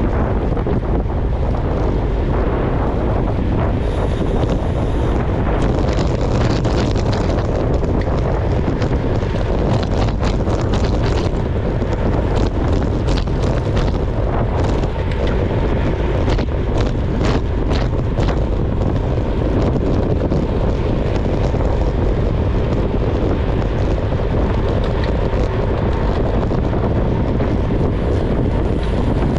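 Steady, heavy wind buffeting on the microphone of a camera mounted on a road bike riding at race speed, a deep rumble with no tones. Scattered sharp clicks come through in the middle stretch.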